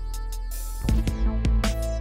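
Background music with a steady beat of drums, bass and guitar.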